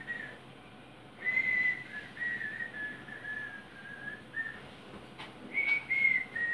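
A person whistling a tune in short held notes that step up and down in pitch. It starts about a second in, pauses briefly, and resumes near the end.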